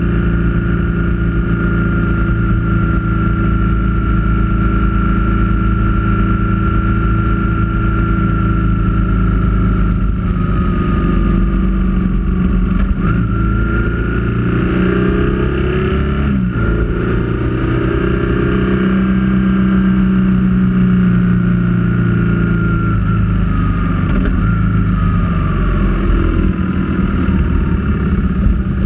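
Motorcycle engine running steadily under way. About a third of the way in the engine note falls and rises a few times, with a brief dip about halfway through, as the revs change through the bends; then it settles to a steady note again.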